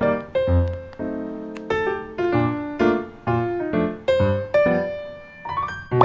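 Background piano music: a light tune of struck notes, each ringing and fading, about two to three notes a second.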